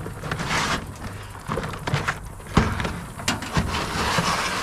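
Scrap wire and metal pieces being handled and tossed into containers: rustling and scraping with several sharp clanks and knocks.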